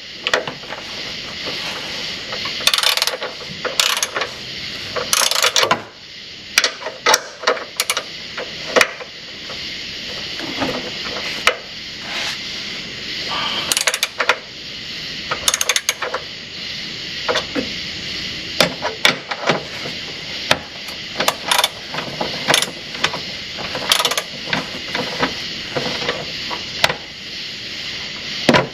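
Metal hand tools clinking, knocking and ratcheting against bolts and brackets under a truck, in irregular bursts over a steady hiss.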